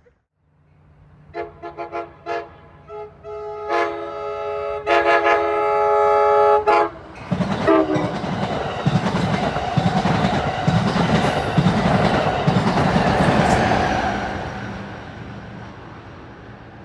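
Amtrak Pacific Surfiner locomotive sounding its multi-chime horn for a railfan: a quick run of short blasts, then longer held blasts, with the pitch dropping on the last one as it passes. The train then goes by with a loud rumble and wheel clatter that fades away.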